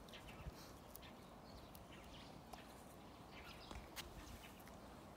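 Near silence: faint outdoor background with a few soft scattered clicks and faint high chirps.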